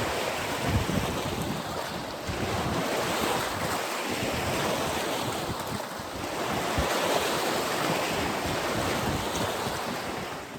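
Wind buffeting the microphone, a steady rushing noise with irregular low gusty thumps, over choppy lake water. It cuts off suddenly right at the end.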